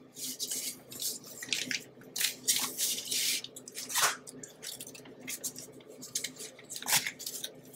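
Paper rustling and crinkling as a puff pastry sheet is unfolded and its paper interleaf strips are pulled away on parchment paper. It comes in short irregular rustles, with a longer one about two to three seconds in and sharper crackles around four and seven seconds in.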